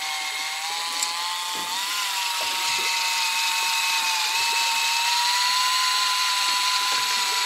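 Small electric motor whining steadily, most likely an electric fishing reel winding line, its pitch creeping slightly upward with small wobbles.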